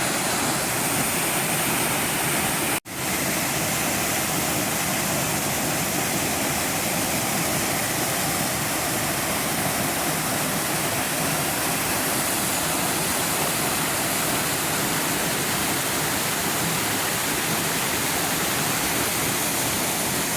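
Corbata Blanca waterfall: a steady rush of falling water, broken by a momentary dropout about three seconds in.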